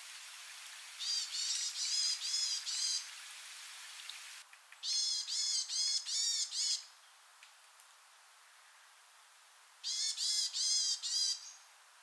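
Varied tit calling: three bouts of five or six quick repeated notes, a few seconds apart. Running water hisses under the first bout and stops about four seconds in.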